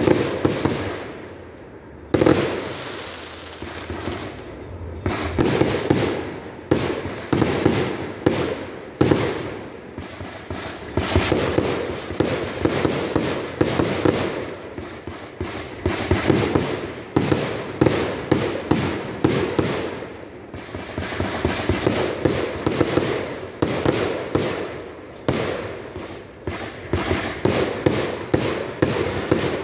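Flying Tiger 120-shot consumer firework cake firing continuously: a rapid string of sharp launch thumps and aerial bursts, about one to two a second, with only brief lulls between volleys.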